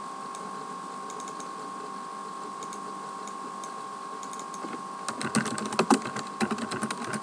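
Computer keyboard typing: a quick run of key clicks starting about five seconds in, with a few scattered clicks before it. A steady electrical hum with a faint fixed tone runs underneath.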